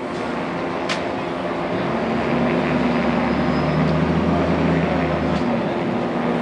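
Loud, steady vehicle engine noise with a low hum, and a sharp click about a second in.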